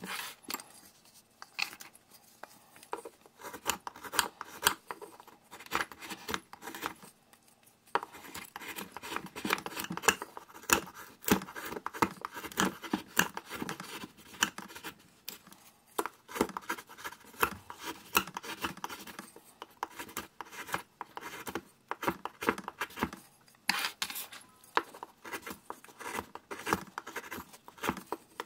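Knife carving a wooden spoon blank by hand: quick, irregular runs of short scraping cuts as thin shavings come off the wood, broken by a few brief pauses.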